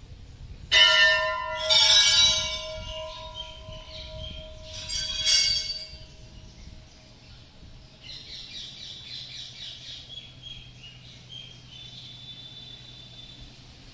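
Temple bell struck three times in quick succession, the first about a second in, each strike ringing on and dying away over several seconds. Fainter bird chirping follows near the end.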